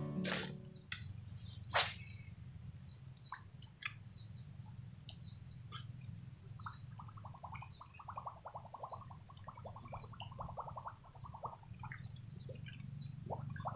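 Small birds chirping with many short, high calls over a low, steady background noise. A sharp, loud click comes about two seconds in, and a rapid rattling runs through the middle and starts again near the end.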